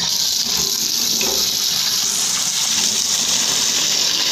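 Kitchen tap running steadily into a stainless steel pot holding two eggs, filling it with water.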